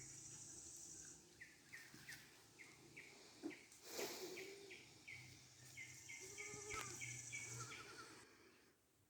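Faint bird chirping: one short call repeated about two to three times a second. A high insect buzz comes near the start and again in the second half, and there is a soft knock about four seconds in.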